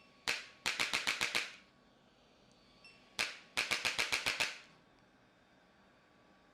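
Spinal joints cracking during a chiropractic back adjustment. One sharp crack is followed by a quick run of about seven pops in under a second, and the same pattern comes again about three seconds later.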